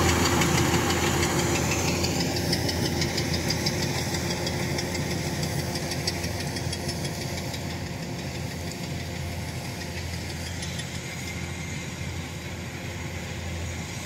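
Kubota crawler combine harvester running steadily as it cuts rice, its engine a continuous hum that grows gradually fainter.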